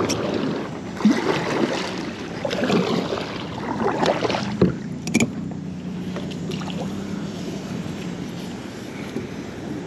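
Kayak paddle strokes, the blades swishing and splashing through the water about once a second, with a few sharp knocks. The paddling eases off about halfway through, leaving a quieter stretch of gentle water sound.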